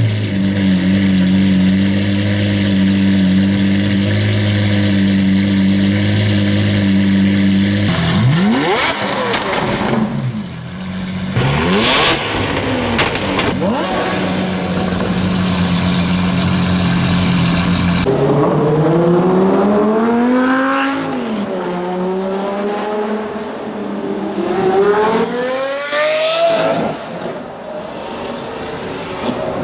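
Lamborghini Aventador LP700-4's 6.5-litre V12 through a Powercraft aftermarket exhaust. It idles steadily, is blipped in two sharp revs, settles back to idle, then accelerates away hard in two rising pulls through the gears near the end.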